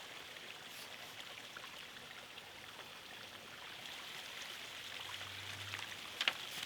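Faint steady hiss of room noise in a pause between read lines, with one short sharp click near the end.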